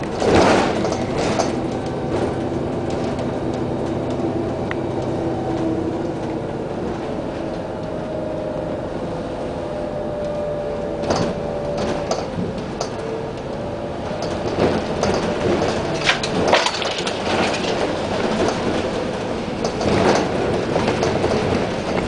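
A bus engine running as it drives along, heard inside the bus, with the body giving irregular knocks and rattles over the rough lane.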